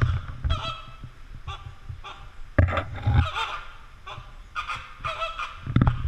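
American flamingos calling: a series of short, nasal, goose-like honks, coming thick and fast about halfway through. Intermittent low rumble and bumps run underneath.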